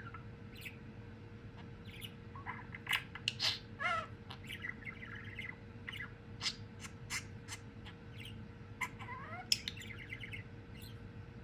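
Budgerigar chirping and warbling: a busy run of short chirps, sharp clicky notes and brief rising and falling whistles.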